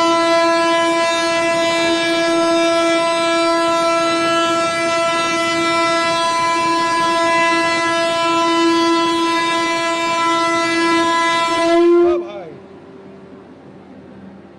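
Vande Bharat train's horn sounding one long steady blast that cuts off suddenly about twelve seconds in.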